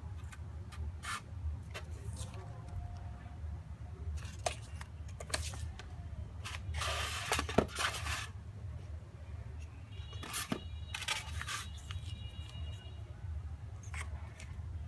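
Cardboard packaging and paper inserts handled by hand: scattered taps, scrapes and rustles, with a longer rustling slide about seven seconds in, over a steady low hum.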